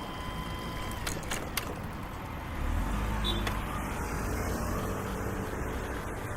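Street noise with a motor vehicle running close by, its low engine sound rising about two and a half seconds in. A few short clicks come just over a second in.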